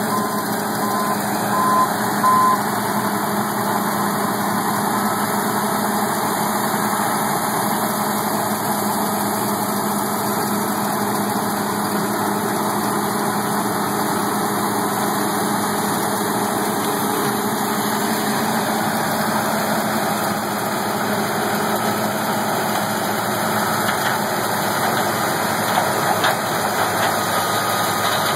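Heavy harvest machinery's engine running steadily, with a repeating warning beep for the first two or three seconds.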